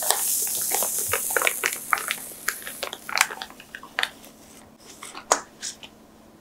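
Baking paper crinkling and crackling as it is peeled away from the sides of a soft soufflé cake: a hiss of paper rubbing at first, then separate crackles that thin out and grow quieter toward the end.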